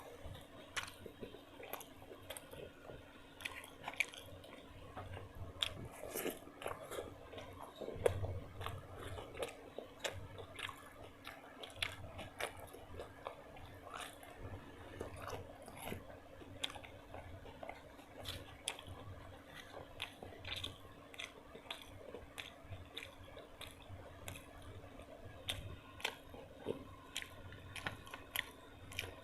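A person chewing and biting food close to the microphone: wet mouth sounds with frequent short crunchy clicks.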